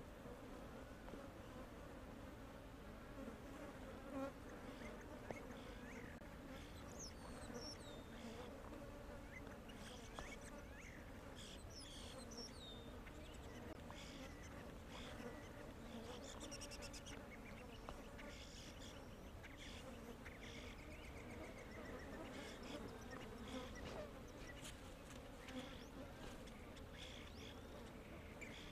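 Faint, steady buzzing of flies swarming over a carcass, with a few faint high chirps and scattered small clicks.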